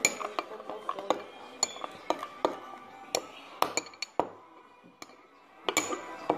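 A metal spoon clinking against a ceramic bowl: a string of sharp, ringing clinks at an uneven pace, pausing briefly about four seconds in. Faint music plays underneath.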